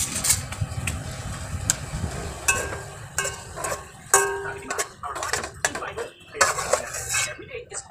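A metal utensil scraping and clinking against a plate and the rim of a pot as cooked vegetables are served, with many short sharp clicks, some of them ringing briefly.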